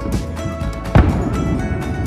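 Music playing, with one loud firework shell bang about a second in.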